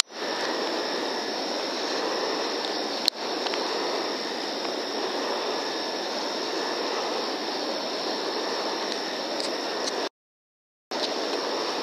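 Steady rushing background noise with a faint high whine through it, recorded on a thermal rifle scope's built-in microphone. A sharp click about three seconds in, and a brief drop to silence near the end.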